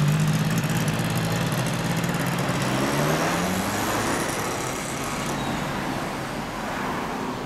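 Yamaha TZR250SP 3MA's rear-exhaust two-stroke parallel-twin engine pulling away at low revs. Its note rises about three seconds in, then fades as the bike rides off.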